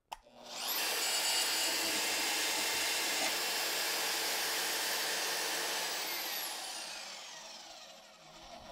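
Milwaukee Portaband metal-cutting band saw started by a foot switch, spinning up with a short rising whine, then cutting through a piece of scrap steel for about five seconds. Near the end the motor is released and coasts down with a falling whine.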